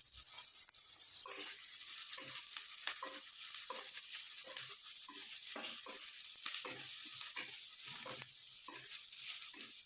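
Chopped onions frying in oil and ghee in a pan, sizzling steadily, with a spoon stirring and scraping them about every half second.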